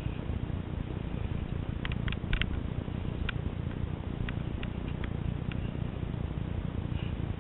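Steady low rumble of wind buffeting the microphone, with a quick cluster of sharp clicks about two seconds in and a few lighter single clicks after.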